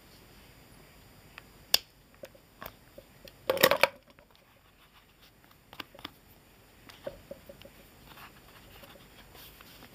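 Leather being worked with a metal rotary hole punch: a sharp click, then a short, loud crunching burst about three and a half seconds in, followed by lighter clicks and taps of the tool and leather being handled.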